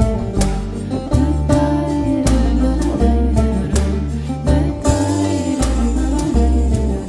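Music: a Turkish folk song played on plucked string instruments over a deep, sustained bass, with a melody line above.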